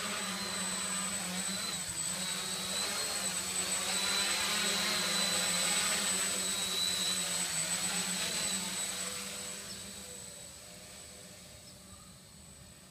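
V-tail quadcopter's electric motors and propellers whirring steadily in flight, growing louder as it flies in close and then fading away as it flies off into the distance.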